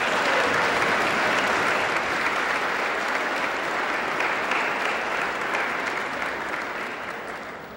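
Audience applauding, loud at once and dying away near the end.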